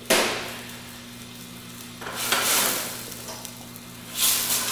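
Chopped tomatoes sizzling in a hot stainless steel sauté pan, the sizzle flaring up sharply three times, each fading over about a second, as they are stirred with metal tongs.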